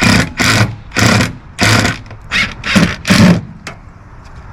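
Cordless power driver running stainless steel screws into a sheet-metal panel in about eight short, loud bursts.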